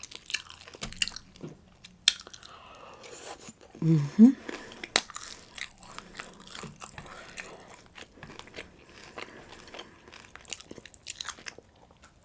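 Close-up eating sounds: a person biting and chewing breakfast food, with many small crunchy clicks and wet mouth noises, and a short hummed "mm" about four seconds in.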